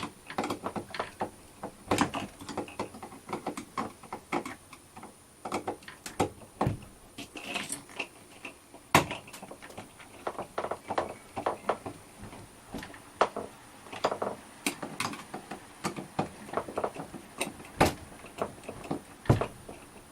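Irregular clicks, taps and knocks of hands working on an RV door lock assembly and its inner panel, parts and hardware being handled and fitted against the door.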